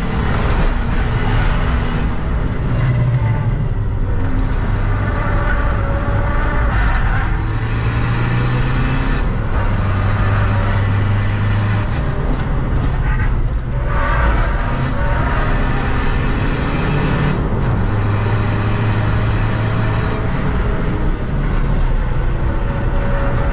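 Seat Ibiza FR's 2.0 TDI common-rail diesel engine running hard on track, heard from inside the cabin together with tyre and road noise. Its pitch holds and shifts between gears, with a gear change about 13 seconds in.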